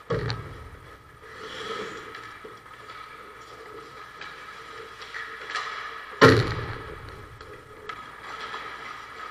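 Ice hockey play: two loud bangs with a low, booming ring-off, one at the start and a louder one about six seconds in, typical of the puck slamming into the rink's boards. Between them, skate blades scrape and hiss on the ice.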